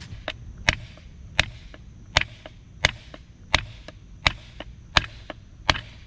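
Rubber mallet striking the butt end of a wooden axe handle in a steady rhythm, about eight sharp blows, each followed by a fainter knock, tapping the handle up into the axe head.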